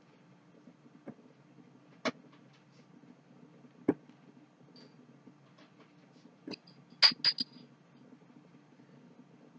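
Scattered knocks and clinks of metal and glass as crown caps are pried off glass beer bottles. The loudest is a cluster of sharp clinks with a brief high ringing about seven seconds in.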